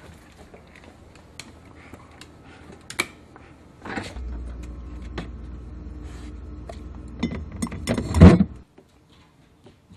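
Refrigerator door pulled open about four seconds in, a steady low hum while it stands open, glass bottles clinking as a beer is taken out, then the hum cut off suddenly as the door shuts.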